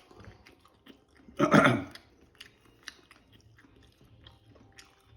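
A person chewing a bite of sauce-drenched chicken wing, with many small wet clicks and crunches. About a second and a half in there is a brief, loud vocal sound from the eater.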